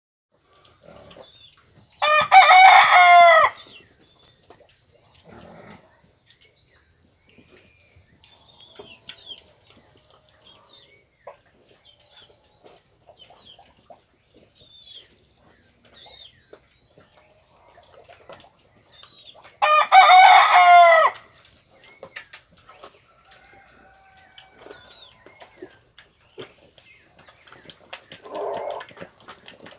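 A rooster crows twice, about seventeen seconds apart; each crow is loud and about a second and a half long. Between the crows come quiet scattered clicks and snuffles from piglets rooting on a concrete pen floor, and a short low grunt near the end.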